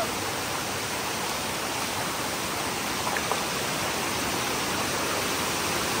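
Steady rush of fast-flowing water, an even hiss at a constant level.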